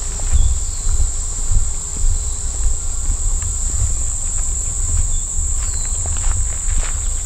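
Steady high-pitched drone of an insect chorus, with a steady low rumble on the microphone and a few footsteps on the trail toward the end.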